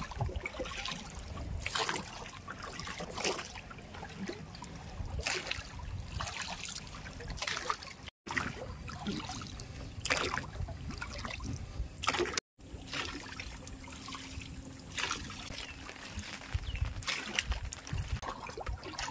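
Lake water splashing and trickling against a small boat, with a sudden splash every second or two.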